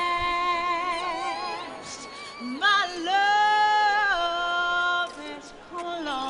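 A woman singing unaccompanied, holding long notes with vibrato and sliding between them. The loudest, highest held note comes about halfway through.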